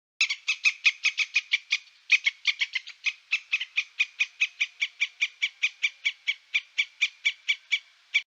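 A frog calling: a long series of short, high, evenly spaced notes, about five a second, with a brief pause about two seconds in.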